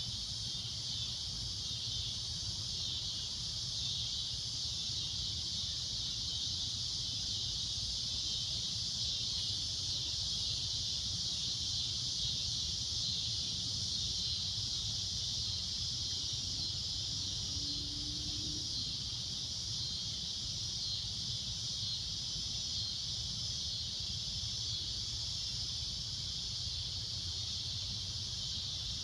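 Cicadas in a steady, shrill droning chorus that holds without a break, over a faint low rumble.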